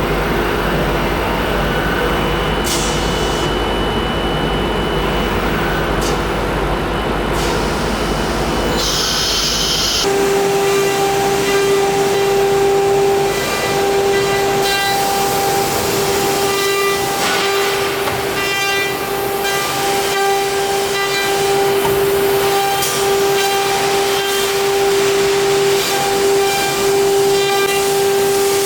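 CNC nesting router at work: steady machine noise with a low hum and a few short hissing bursts, then about ten seconds in an abrupt change to a strong, steady high-pitched spindle whine over cutting noise.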